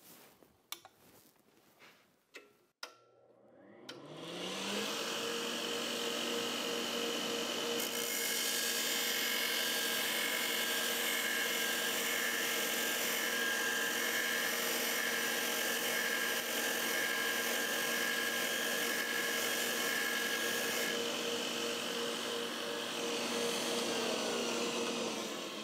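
Magna-Matic MAG-8200 belt grinder with a 2-inch abrasive belt: a few clicks, then the motor switches on about three seconds in, spins up with a rising hum, and runs steadily. From about eight seconds to about twenty-one seconds a steel lawn mower blade is pressed against the belt, adding a loud hissing grind as a 45-degree bevel is ground onto its 30-degree cutting edge in one pass. At the very end the motor begins to wind down.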